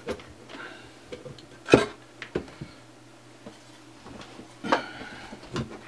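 Metal parts of an LED PAR can clinking and knocking as it is taken apart by hand, the mounting bracket lifted off and the rear panel pulled out. A few scattered knocks, the sharpest and loudest about two seconds in.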